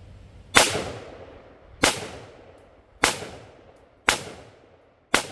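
Five gunshots, a little over a second apart, each followed by a short ringing echo.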